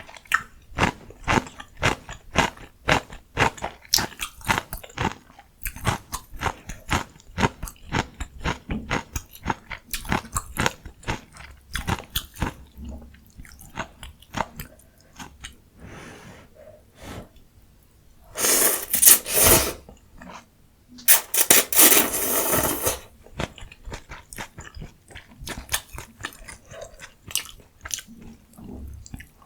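Close-miked eating: a person chewing crunchy food with about two or three crisp crunches a second for the first dozen seconds, then softer, sparser chewing. About two-thirds of the way through come two long, loud slurps of ramyun noodles.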